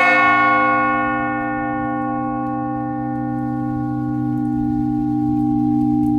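Large Russian bell of about 5,000 pounds struck once, then ringing on with great resonance. Its high overtones fade within a couple of seconds while the deep low tones keep sounding, one middle tone pulsing slowly.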